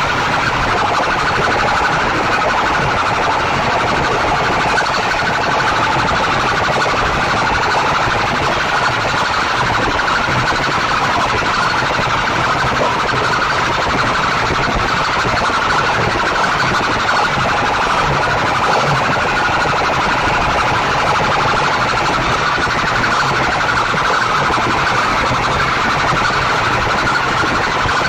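A large bank of horn loudspeakers on a sound-box rig blaring at full volume: a loud, unbroken blare, strongest in the upper middle and thin in the bass.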